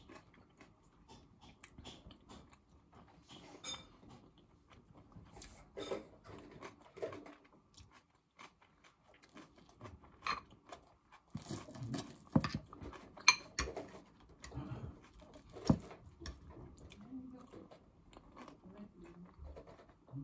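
A person chewing and biting fresh vegetable salad close to the microphone, with wet crunches and scattered clicks from the fork. The crunching comes thickest about halfway through.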